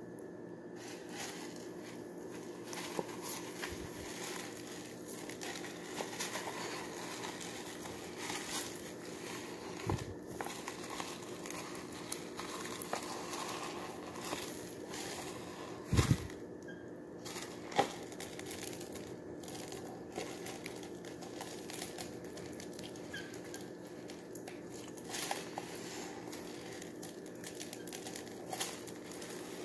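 Slime being kneaded into a plastic tub of foam beads: a continuous crackling and crunching of the beads under the hands, with a few sharp knocks, the loudest about sixteen seconds in.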